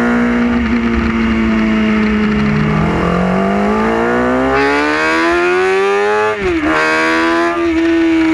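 Motorcycle engine under way: its steady note eases off, then climbs steadily as the bike accelerates, drops sharply at a gear change about two-thirds of the way through, and settles to a steady cruising note.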